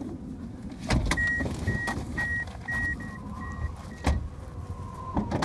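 A sharp click, then a car's electronic warning chime beeping six times, about twice a second, growing fainter, with another click near the end.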